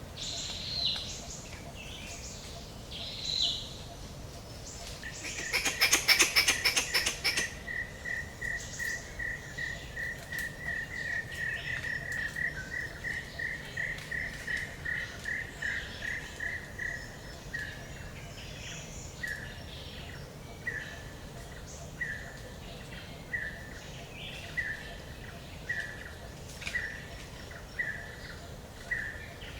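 Forest birdsong: a few high chirps, then a loud rapid rattle of sharp taps lasting about two seconds, followed by a bird repeating one short note about twice a second that slows to roughly one every second and a half, over a steady low background hiss.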